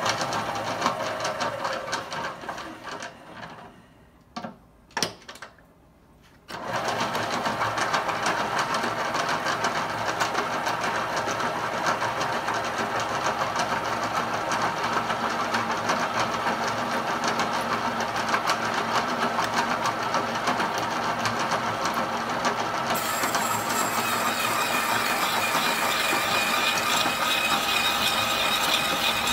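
Two sharp clicks, then from about six seconds in a milling machine's spindle runs a carbide-tipped hole saw cutting into thick steel with a loud, steady mechanical grinding. A higher steady whine joins near the end as the cut starts smoking.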